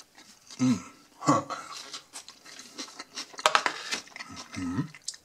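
A person biting and chewing a soft burger bun, with a few sharp knocks and rustles from handling the paper food bowl.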